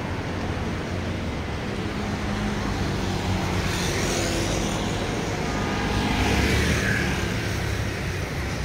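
City street traffic: motor vehicles running along the road in a steady hum, with one passing a little closer and louder about six seconds in.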